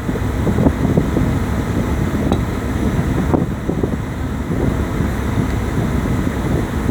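Wind buffeting the microphone over the steady low rumble of a boat under way.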